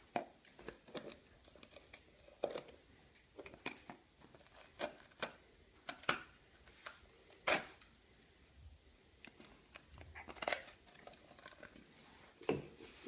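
A Cane Corso chewing and gnawing a baguette, the hard crust crunching and tearing in an irregular series of crisp crackles, a few much louder than the rest.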